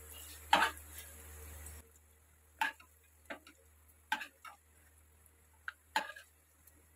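Metal slotted spoon clinking and tapping against an aluminium frying pan while fried coconut pieces are scooped out of ghee: about half a dozen separate sharp taps, irregularly spaced.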